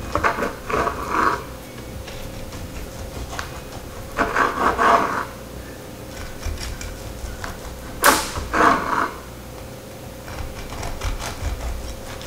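Kitchen knife sawing through a baked sticky rice cake on a wooden cutting board: three scraping cuts about four seconds apart. The blade knocks sharply on the board at the start of the third.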